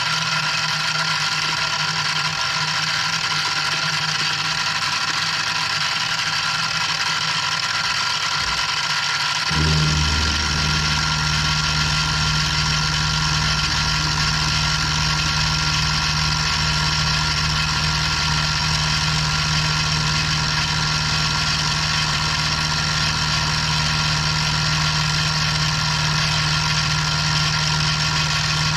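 Benchtop milling machine running, its 1/4-inch end mill cutting a slot in a knife-handle block for the tang: a steady motor whine, joined about ten seconds in by a deeper hum that holds steady.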